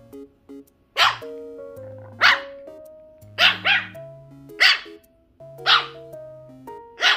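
Maltese dog barking sharply, seven high barks about a second apart with a quick double in the middle, over light background music.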